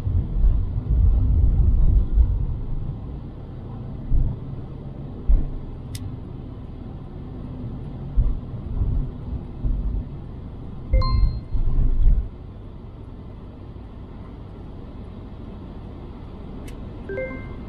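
Car cabin noise while driving: a low road-and-engine rumble that surges unevenly, loudest in the first couple of seconds and in bursts up to about twelve seconds in, then steadier and quieter. Short electronic beeps about eleven seconds in and again near the end.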